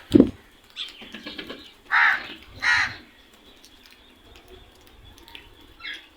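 Crows cawing: two loud harsh caws in quick succession about two seconds in, and a fainter call near the end. Just at the start there is a short, loud, low sound that falls in pitch.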